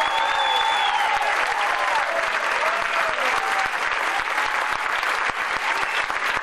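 Audience applauding, with voices calling out over the dense clapping in the first few seconds.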